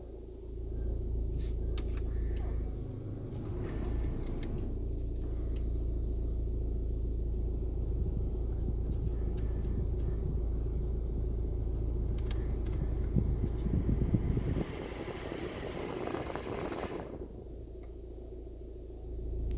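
VW Passat B7 engine idling, heard from inside the cabin, with a steady grinding noise from the front bulkhead area, under the dash or in the engine bay, that does not change with the air conditioning switched. The owner guesses it is a pulley off the engine. A brief hiss comes in about three quarters of the way through.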